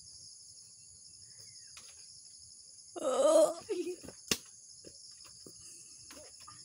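Steady high chirring of insects in the vegetation. About three seconds in a short vocal exclamation breaks in, followed a moment later by one sharp click or snap.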